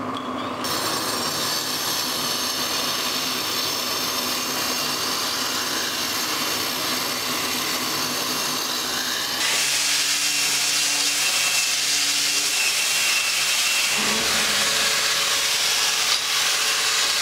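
Power tools cutting stone, beginning with an angle grinder running through a block with a steady high whine. The machine noise changes about nine seconds in, getting louder and hissier, and shifts again near fourteen seconds.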